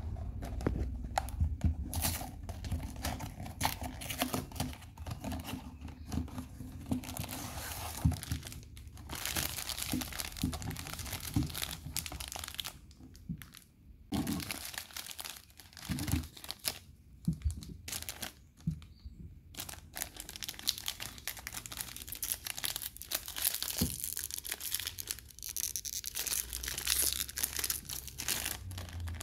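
Cardboard snack boxes handled and opened, and foil packets of Tricks potato chips crinkling and rustling as they are taken out and fanned in the hands, with sharp clicks and crackles throughout. Near the end a packet is pulled open with a tearing crinkle.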